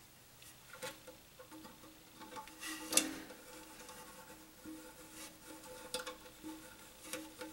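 Faint clicks and knocks of hands handling and fitting the plastic flush valve and its seal inside a ceramic toilet tank, the sharpest knock about three seconds in.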